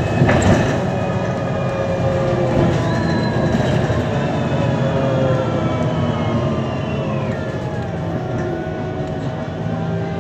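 MAN Lion's City G CNG articulated bus running: its MAN E 2866 gas engine and Voith 864.4 automatic gearbox are heard together as a steady drone. There is a sharp knock about a quarter second in, and a whine that slides down in pitch from about three to seven seconds in.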